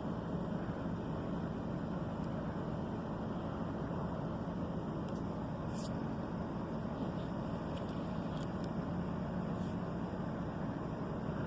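Swather engine running steadily, an even low drone with a steady hum. A few faint, short high ticks come through around the middle.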